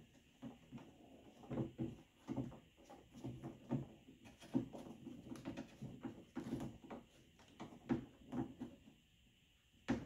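Faint, irregular clicks, taps and knocks of a Ford F-150 exterior door handle assembly and its metal linkage rods being handled and fitted into the door. The handling noises stop about a second before the end.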